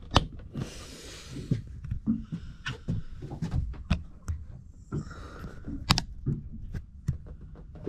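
Camera handling noise: scattered sharp clicks and knocks, with a couple of short spells of rustling, as the camera is moved about and fixed in place.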